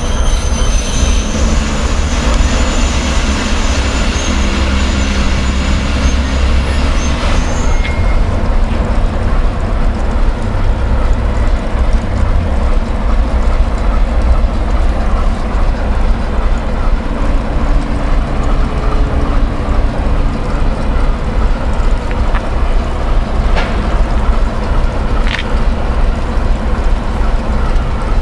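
ChME3T shunting diesel locomotive's six-cylinder diesel engine running at low revs as it hauls a freight train slowly and comes to a stop. A high wheel and brake squeal runs for about the first eight seconds and ends as it halts. Two short sharp sounds come near the end.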